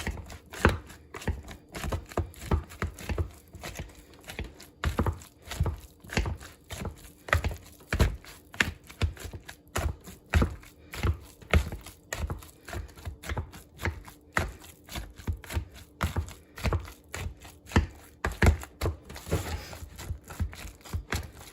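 Boiled potatoes being mashed by hand with a potato masher in a pot: a steady run of soft thuds and squishes, about two a second.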